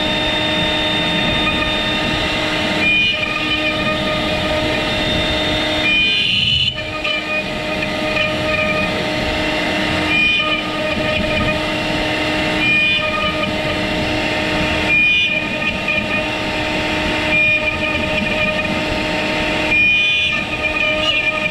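CNC router spindle running with a steady high whine while a V-bit carves into a hardwood board. Every two to three seconds the cutting sound briefly breaks off and changes.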